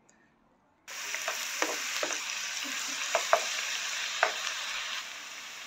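Finely chopped onion hitting hot coconut oil in a non-stick wok and sizzling loudly, starting suddenly about a second in, stirred with a slotted spoon, with occasional sharp clicks.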